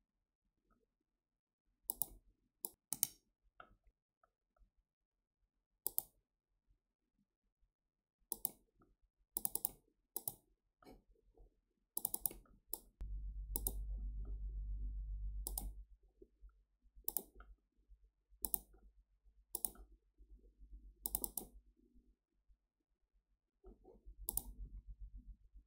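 Computer mouse clicks, some single and some in quick pairs, spaced a second or more apart. A low steady hum comes in for about three seconds in the middle.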